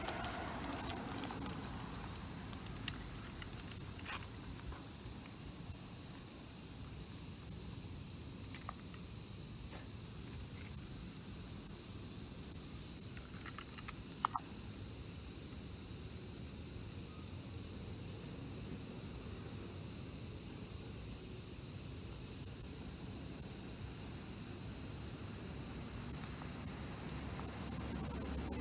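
Steady high-pitched insect chorus, an unbroken chirring drone, with a low background rumble and a few faint clicks.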